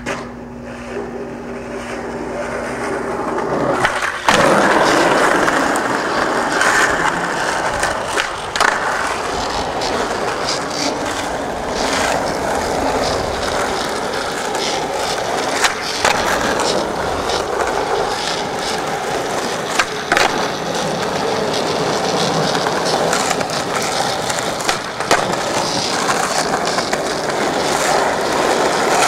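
Skateboard wheels rolling over rough asphalt, with several sharp clacks of the board popping and landing tricks.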